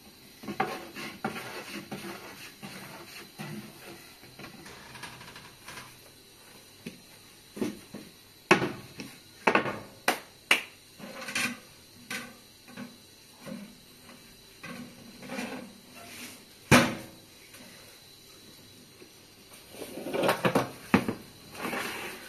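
Scattered knocks, clatters and scraping of household things being handled during bread making, with one sharp knock about three quarters of the way through and a busier run of clatter near the end.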